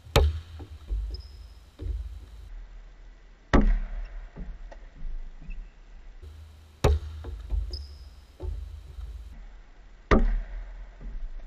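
Basketball dribbled hard on a hardwood gym floor: four loud bounces about three seconds apart, each echoing through the gym, with lighter bounces between and a couple of short, high sneaker squeaks on the court.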